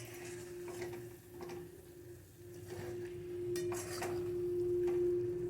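A metal spoon or spatula scraping and clinking against a cooking pan in several short strokes, the loudest near the end, over a steady hum.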